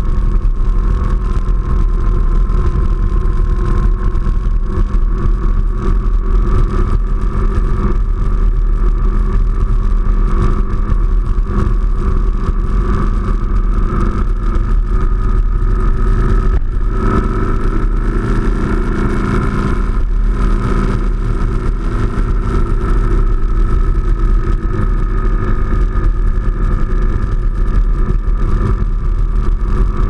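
BMW R1200GS Adventure's boxer-twin engine running at a steady cruise, with tyre and wind noise from riding a wet gravel road and a heavy low rumble over everything. The engine pitch rises a little past the middle and eases off again.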